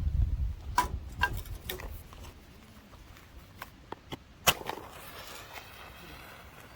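A few light clicks and knocks, the loudest a single sharp click about four and a half seconds in, over a low rumble that fades out after the first two seconds.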